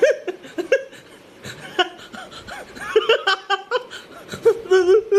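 A man laughing in short, breathy bursts, then breaking into a long, wavering, drawn-out wail, like mock crying, near the end.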